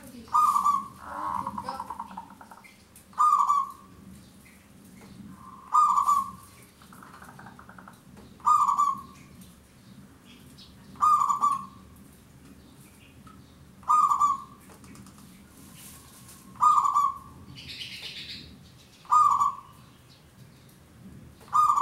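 Zebra dove (perkutut) singing, a short cooing phrase repeated about every two and a half to three seconds, nine times in a row.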